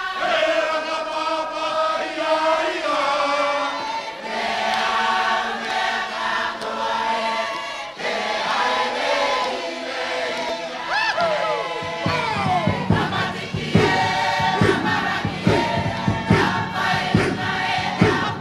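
A Cook Islands congregation singing together in harmony as a choir, with voices sliding in pitch. From about twelve seconds in, a drum beats a regular rhythm under the singing and shouts.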